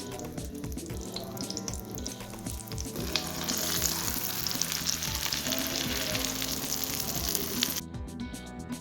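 Food frying in hot oil in a pan, a loud steady sizzle that swells up about three seconds in and cuts off abruptly near the end, over background music.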